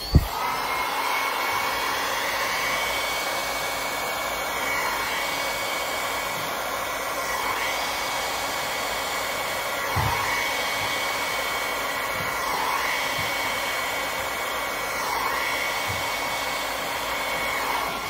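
Hair dryer running with its nozzle attachment off: a steady rush of air with a high whine, swelling and dipping slightly every couple of seconds.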